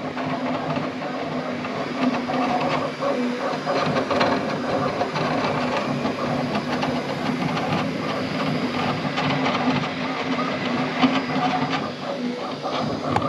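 Bambu Lab X1-Carbon 3D printer printing in its fast sport speed mode: a steady hum of fans and motors under a rapid, uneven clatter of clicks as the toolhead darts about.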